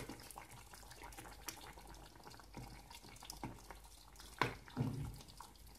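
Faint sounds of a wooden spoon stirring a thick vegetable stew in a steel pot while a yogurt-and-egg mixture is poured in slowly, with two soft knocks near the end.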